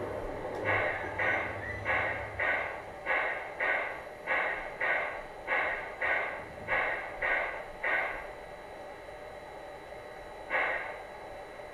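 Zimo MX699 sound decoder in an LGB model of the HF110C steam locomotive, playing the locomotive's steam air pump sound through the model's loudspeaker; the sound is built largely from recordings of a real HF110C. The pump runs by itself while the locomotive stands, in even puffs about two a second. The puffs stop about eight seconds in, then one more stroke comes near the end.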